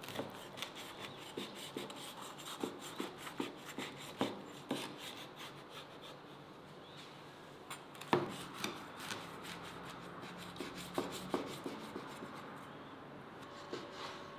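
Large kitchen knife cutting through the baked crust of a meat pie on a wooden board: crackling and rubbing of the blade through the crust, with a sharper crack about eight seconds in.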